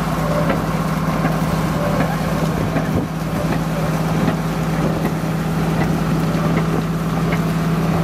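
Motorboat engine running with a steady low drone, under a constant wash of water noise.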